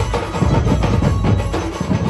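Chhattisgarhi dhumal band playing on the march: a fast, dense drum beat from marching drummers over steady bass-heavy music.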